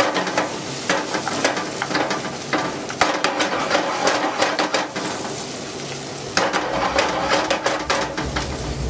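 A utensil stirring and clicking against a pan as hard butter is worked into a coq au vin sauce to mount it, over the sizzle of the sauce on the heat. The clicking eases off about four seconds in and picks up again after about six.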